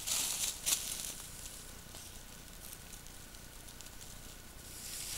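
Short rustling in dry leaf litter as an animal walks close past the trail camera, over the steady hiss of the camera's microphone. The rustling comes in a few bursts in the first second, fades, and picks up again near the end.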